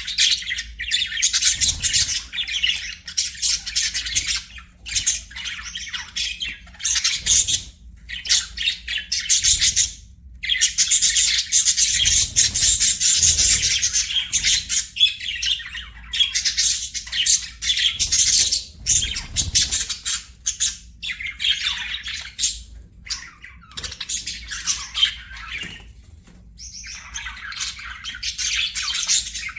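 Budgerigars chattering and chirping in rapid, continuous high-pitched warbles, with a few brief pauses.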